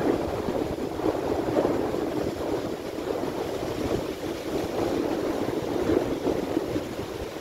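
Stormy sea surf breaking on a rocky, pebbly shore: a steady rushing wash of waves without a break.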